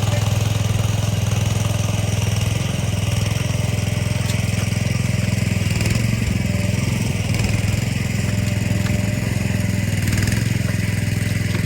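Small gas engine of an AGT H12R mini excavator running steadily, with slight rises and dips in load, as a fence is being torn out.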